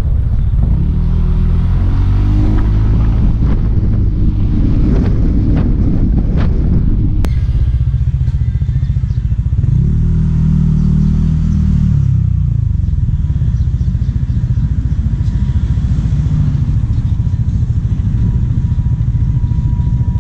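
Motorcycle engine under way, its pitch climbing and dropping twice as it speeds up and eases off, then running more steadily.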